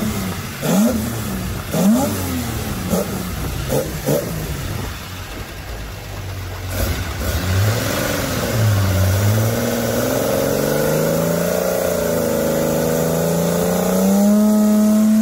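Datsun L-series inline-six in big-bore tune being revved. Sharp throttle blips come about once a second, then a longer pull where the pitch wavers and climbs steadily.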